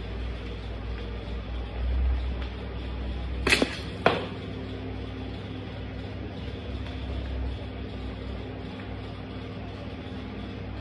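A Converse high-top sneaker stamping down on a halved orange on a tile floor, crushing it: two sharp impacts about half a second apart, a little over three seconds in. A steady low rumble underneath throughout.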